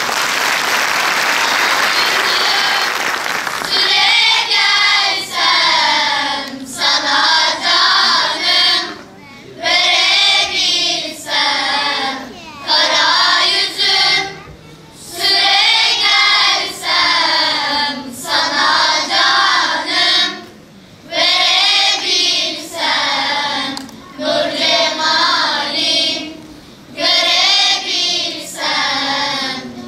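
Children's choir singing in short phrases broken by brief pauses. It opens with about three seconds of a loud, even rush of noise before the singing starts.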